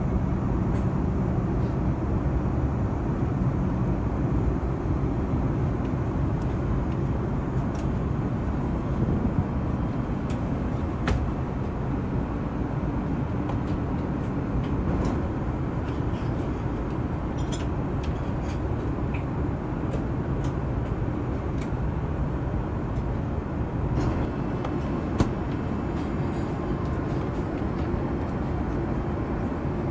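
Steady cabin noise inside an Airbus A380 airliner, a low, even rush of air and engines, with a few faint clicks.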